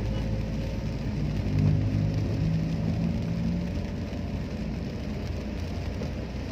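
Car driving on a wet road in the rain, heard from inside the cabin: a steady low engine and road rumble with the hiss of tyres and rain. The engine note swells about two seconds in and then settles.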